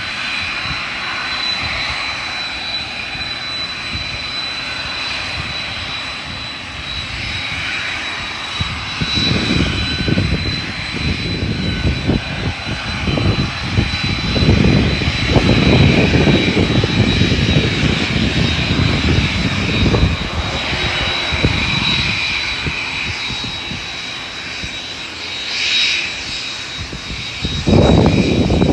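Airliner engines running with a steady high whine, joined from about nine seconds in by an uneven low rumble that comes and goes.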